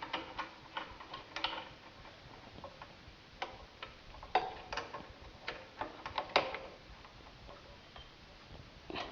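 Irregular light metallic clicks and taps as tools and the brake caliper bolt are handled during reassembly of a motorcycle disc brake, a few knocks a second at most with short gaps.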